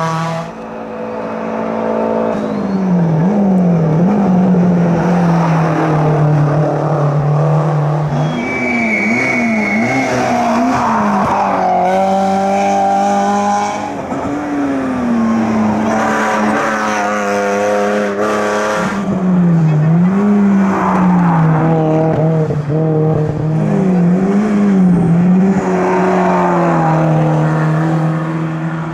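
Hill-climb competition cars' engines under hard load, the engine note holding steady for a few seconds at a time, then dipping and climbing again with gear changes and throttle lifts as cars pass.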